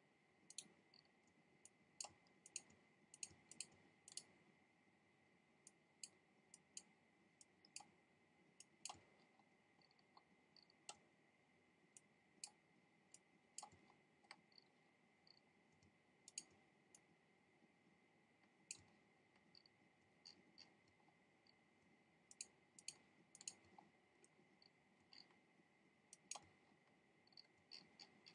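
Faint, irregular computer mouse clicks, some single and some in quick runs of two to four, as pixels are clicked in one at a time along an edge. Under them runs a faint steady high whine.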